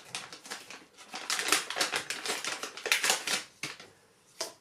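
Crinkling and crackling of a toy blind-bag's plastic packaging as it is torn open by hand, a rapid irregular run of crackles that dies down near the end, with one last sharp crackle.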